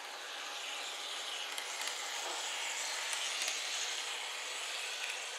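N-gauge model trains running on the layout's track: a steady rolling hiss of small wheels and motors on the rails, swelling a little in the middle, with a few faint clicks.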